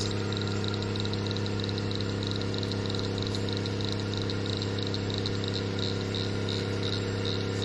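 A heavy wrecker tow truck's engine drones steadily at an even low pitch while it winches a sunken car out of a pond. Over it is a high, rhythmic chirping at about three pulses a second.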